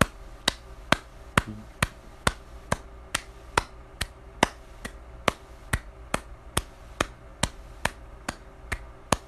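Wall light switch flicked on and off over and over, a sharp click a little over twice a second at an even pace.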